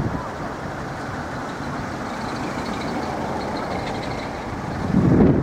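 Level crossing warning alarm sounding faintly with a pulsing high tone over steady road-traffic noise, with a gust of wind on the microphone near the end.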